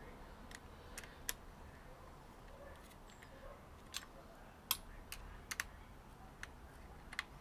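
Small metal hand tool clicking and tapping against motorcycle handlebar fittings while a handguard bolt is fitted: about a dozen light, sharp clicks, unevenly spaced.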